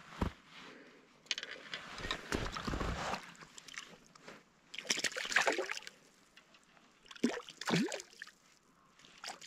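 A hand splashing in shallow lake water at the rocky shore: several irregular splashes, then a couple of short plops near the end.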